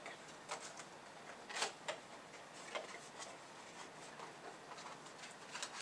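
A small cardboard product box being opened and unpacked by hand: scattered light clicks and rustles of cardboard and paper packaging.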